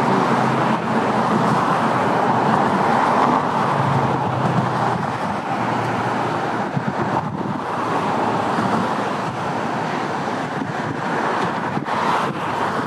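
Steady road traffic noise from cars running across a road bridge, an even rush with no single pass standing out.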